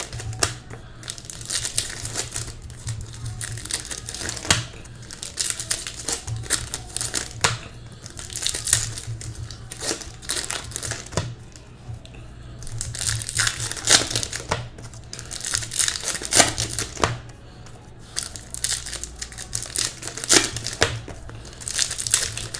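Trading-card pack wrappers crinkling and tearing as packs from a 2018 Topps Pro Debut baseball hobby box are ripped open and handled, in irregular crackly bursts over a low steady hum.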